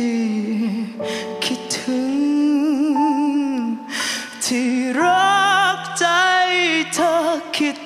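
A woman sings into a microphone over backing music, holding notes with vibrato. About five seconds in she sings out louder and higher, with a wide vibrato.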